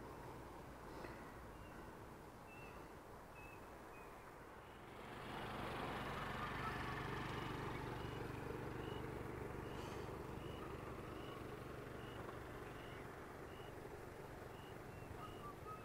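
Faint outdoor ambience. A vehicle is heard on the road, swelling about five seconds in and then slowly fading. Under it runs a series of short, high chirps repeating about twice a second.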